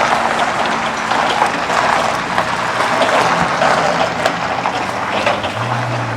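A honeybee cluster buzzing with a steady hum under a loud, dense crackling rustle. The hum fades about halfway through.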